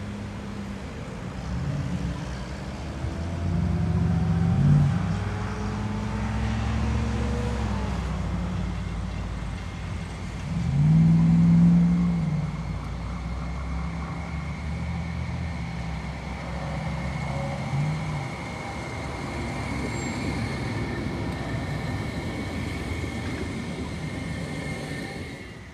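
Road traffic at an intersection: car and ute engines and tyres rise and fall as they pass, loudest about five and eleven seconds in. In the second half a CAF Urbos light rail tram rolls past close by, with a steady high whine.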